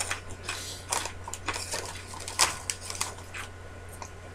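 Sharp, irregular crinkling and crackling of a Cheetos Crunchy snack bag as a hand reaches in for a snack, over a steady low electrical hum.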